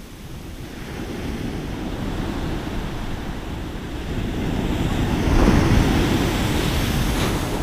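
Ocean surf breaking and washing up a sand beach, with wind rumbling on the microphone. The wash builds and is loudest about five to six seconds in.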